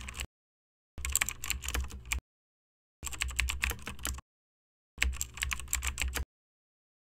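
Keyboard typing sound effect: quick runs of key clicks, each lasting a little over a second and starting every two seconds, with dead silence between runs. A run ends just after the start, and three more follow.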